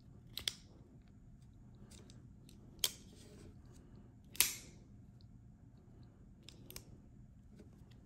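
The James Brand Carter XL folding knife being flicked open and shut: several sharp metallic clicks of the VG-10 blade swinging out and snapping against its slide lock, spread over the seconds, the loudest about four and a half seconds in.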